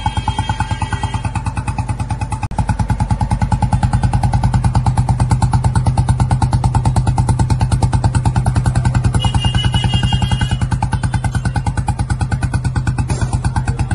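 Royal Enfield Classic 350's single-cylinder engine idling through an aftermarket Indori-style silencer: a steady, even thump of exhaust beats that holds its pace throughout.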